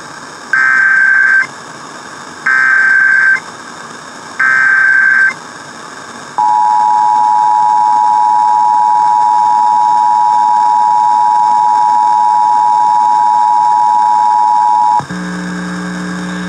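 Emergency Alert System test alert tones. Three one-second bursts of SAME header data tones, about a second apart, are followed by the two-tone EAS attention signal. That signal is a steady pair of tones held for about eight and a half seconds and then cut off sharply.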